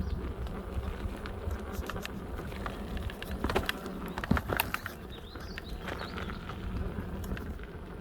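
Mountain bike rolling along a dirt trail: a steady low rumble of tyres and wind on the microphone, with a cluster of sharp clicks and rattles from the bike a few seconds in.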